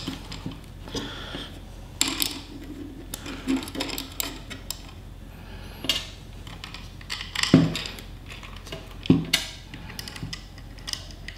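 Small metal bolts and wing nuts clicking and clinking against a sheet-metal screen-mounting bracket as they are fitted by hand, with scattered handling knocks, two of them louder about two-thirds of the way through.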